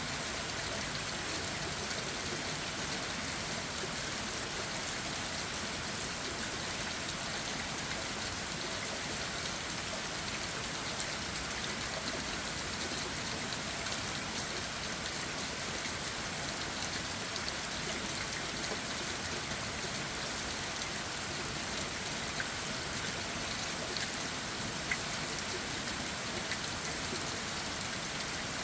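Steady rain falling on leaves and ground: an even hiss with occasional single drops tapping.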